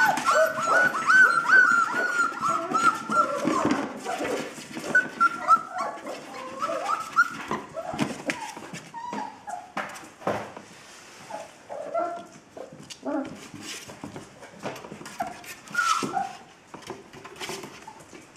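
Young puppies whimpering and squealing: a dense run of high, overlapping squeals for the first few seconds, then scattered shorter whines, with sharp knocks and scrabbling as they climb at a board wall.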